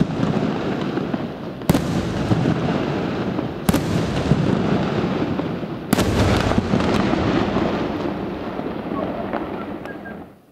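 Multibreak aerial firework shells bursting: three sharp bangs about two seconds apart, each followed by a long rolling echo. The rumble fades away near the end.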